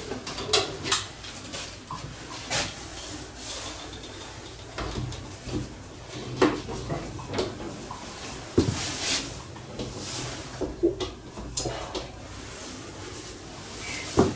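Scattered clacks and knocks of hand work on the metal fittings and aluminium framing inside an empty box-truck body, about a dozen sharp hits at irregular intervals. A low hum comes in about five seconds in.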